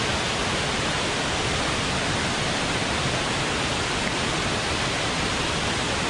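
Steady, even rush of a tall, multi-tiered mountain waterfall pouring down a rock face, with no change in level.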